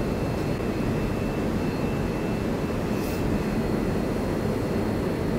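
Steady low rumble of a train at the station, with a faint steady high whine over it.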